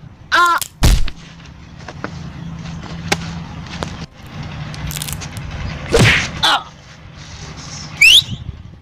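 Short yelps and cries from a boy's voice, with a sharp thump about a second in and a loud burst near six seconds, then a quick rising whistle-like sweep near the end.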